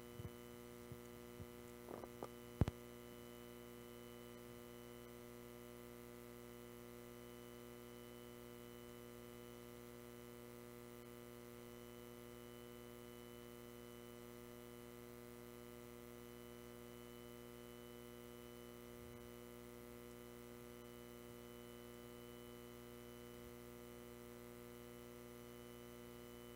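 Steady electrical mains hum on a quiet recording, with a few faint clicks and one sharper click about two and a half seconds in.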